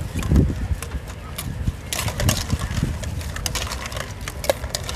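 Utensils clattering at a salad stall: scattered sharp clicks and knocks with a couple of dull thumps, over a steady low rumble.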